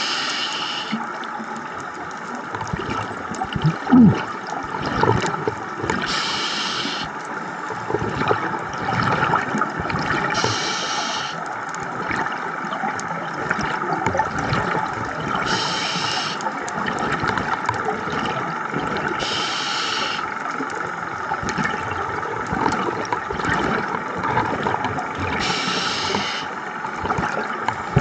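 Scuba diver breathing through a regulator underwater: a burst of exhaled bubbles about a second long comes every four to six seconds over a steady watery hiss. A short rising squeak sounds about four seconds in.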